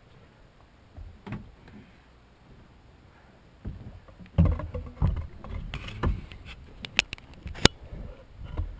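Bumps and thumps of a man moving about in a small boat, with clothing and handling noise against the camera, ending in a few sharp clicks. The first half is quieter, with one knock about a second in.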